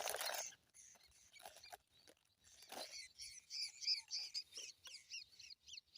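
Small bird calling: a fast series of short, high, falling chirps, about four or five a second, starting about halfway through.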